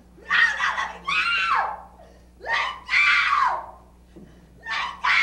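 A person screaming over and over: five or six short, high-pitched screams in quick pairs, each falling off in pitch at its end.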